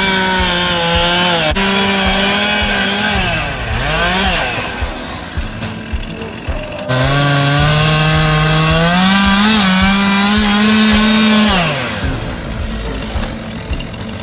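Two-stroke chainsaw running at high revs in two long spells, its pitch dipping and climbing in between and dropping off near the end.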